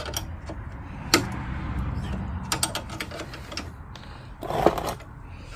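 Metal hand tools clicking and clinking as a spanner and hex bit work the nut on a car's anti-roll bar link, with a sharp click about a second in, a run of clicks in the middle and a louder clatter near the end.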